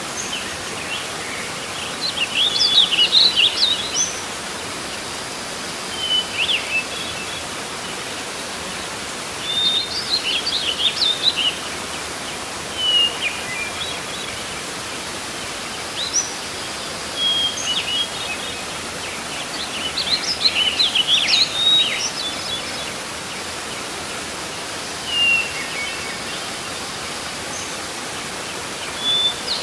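Steady rushing water of a waterfall, with birds singing short twittering phrases every few seconds over it.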